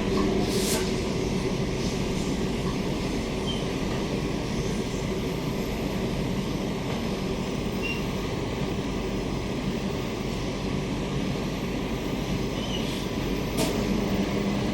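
Interior of a Queensland Rail SMU 260 series electric multiple unit trailer car running between stations: a steady rumble of wheels on rail. A low hum fades after the first second and returns near the end, and there are a couple of sharp clicks, one near the start and one near the end.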